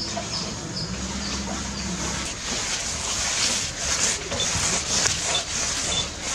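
Rope and net scraping and rustling against the well shaft as the rescue net is hauled, with a row of about five short high chirps in the first two seconds and a few more near the end. A low hum runs under the first two seconds.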